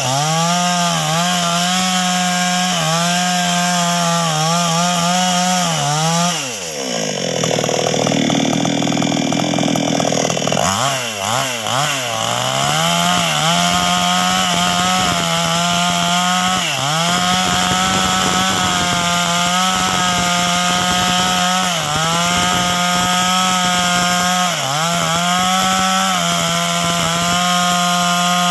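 NWESST 628 two-stroke chainsaw running at full throttle, cutting sengon wood, its pitch sagging briefly now and then as the chain bites. About six seconds in it drops to a low, slow running for roughly four seconds, then revs back up to full speed and carries on cutting.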